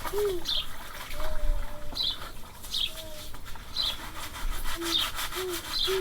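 Birdsong: a small bird repeating a short falling chirp about once a second, with short low coos from a dove, over rhythmic rubbing strokes.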